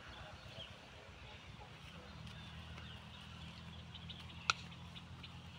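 Faint chirping of small birds. About two seconds in, a steady low motor hum joins it, and a single sharp click comes near the end.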